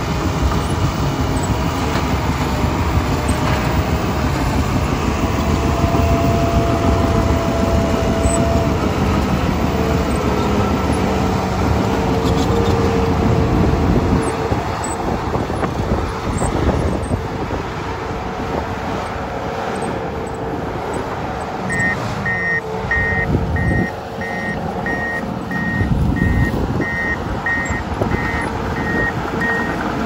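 Komatsu D51PX crawler dozer's diesel engine working under load, with the clank and rattle of its steel tracks as it pushes dirt. About two-thirds of the way through, its reverse alarm starts beeping steadily as it backs up.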